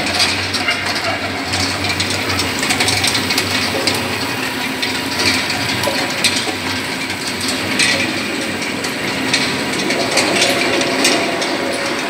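NGM_OP 20 S olive pitting machine running, its 20-needle stainless-steel pin drum turning with a steady, dense clatter of rapid mechanical clicks.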